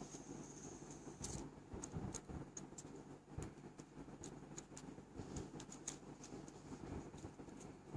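LED fidget spinner being handled: faint, irregular small clicks and taps over a low steady hum.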